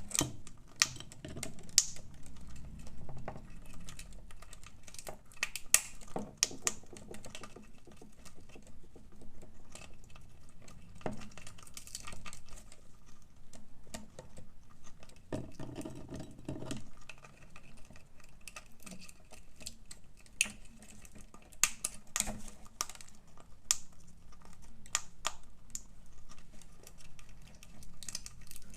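A parrot's beak cracking and gnawing at a walnut shell: irregular sharp clicks and cracks, a few much louder than the rest.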